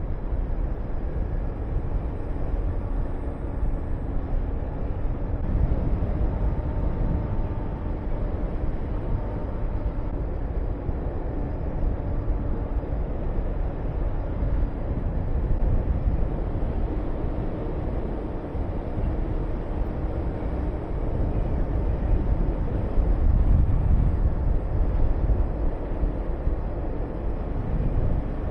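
Honda VTR250's V-twin engine running at a steady road speed under the rush of wind on the microphone. The wind swells lower and louder about six seconds in and again near the end.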